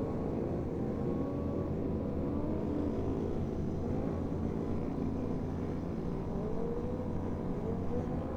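Steady low rumble of vehicle engines during a group ride, with faint engine notes rising and falling a few times in the second half.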